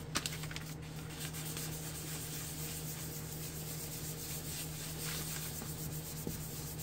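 Crumpled tissue rubbed back and forth over an ink-stamped paper tag: a continuous soft scratchy rubbing of paper on paper, blending and smudging the ink, over a steady low hum.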